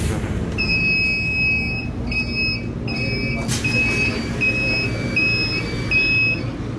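A bus door warning beeper sounding a string of electronic beeps, about seven in all: the first about a second long, then six shorter ones roughly evenly spaced. Underneath runs the bus's steady low hum, with a single click about halfway through.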